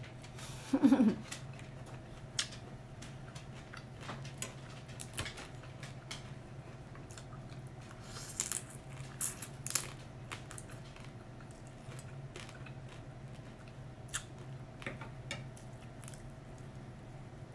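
Close-up eating sounds: chewing stir-fried noodles and lobster, with scattered small mouth clicks and smacks. There is a short hummed "mm" about a second in, and a louder cluster of biting and sucking around halfway through as a piece of lobster is bitten from the fingers.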